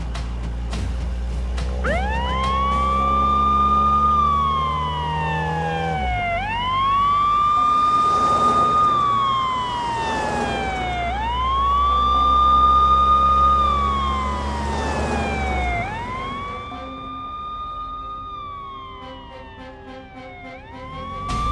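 Police car siren wailing. Its tone rises, holds, then slides down, repeating about every four and a half seconds, over a steady low drone that cuts out twice.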